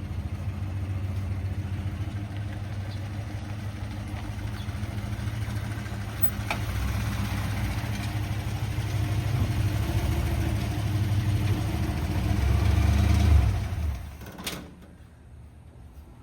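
Engine of a 1957 Ford Thunderbird running as the car comes up, growing louder until it is switched off about fourteen seconds in, followed by a single sharp click.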